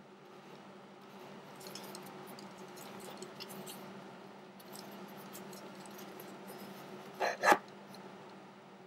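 Light clicks and ticks of a plastic airsoft pistol frame being handled and turned over in the hand, with two knocks close together about seven seconds in, the loudest sound, over a steady low hum.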